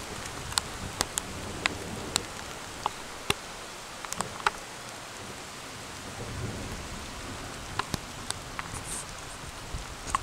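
Steady rain falling, with scattered sharp drop ticks, and a low rumble that swells about six seconds in.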